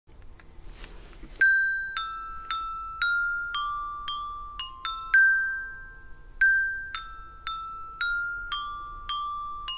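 Background music: a slow melody of single chiming notes, about two a second, each struck and ringing away, starting about a second and a half in.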